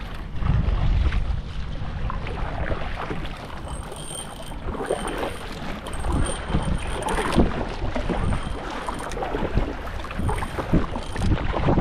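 Kayak paddle strokes: a plastic-bladed paddle dipping and splashing in choppy sea water, with wind buffeting the microphone, strongest in the first second or so.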